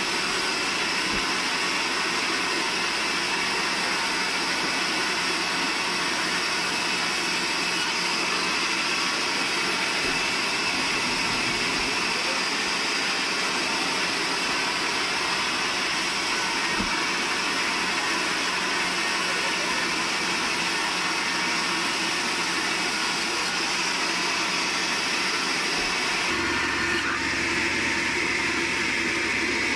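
Band sawmill running steadily, its blade cutting lengthwise through a large squared log. A deeper hum joins near the end.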